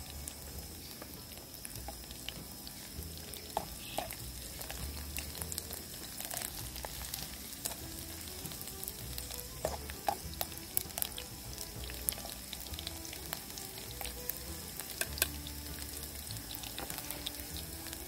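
Food frying in a pot, a steady sizzle with many scattered crackles, under soft background music with slow low notes.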